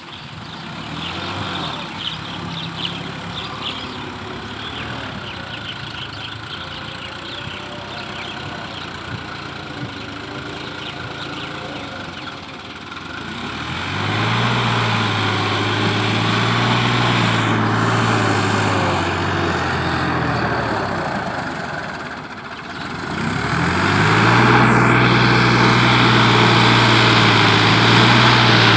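Diesel farm tractor engine running under load as it drags a rotary tiller through a flooded paddy field. It is fainter for the first half, then much louder from about halfway. The engine note rises twice as it swells.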